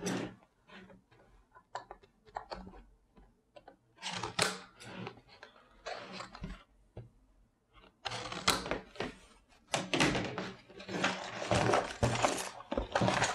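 Scattered knocks and clicks from a small cardboard LEGO set box being handled. About eight seconds in, these give way to dense rustling and scraping as the box is opened and its plastic parts bags are handled.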